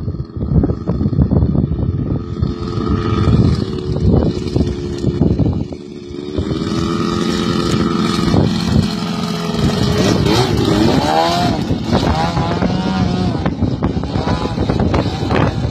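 Aircraft engine running, its pitch shifting up and down as power changes, under heavy wind buffeting the microphone. The level dips briefly about six seconds in.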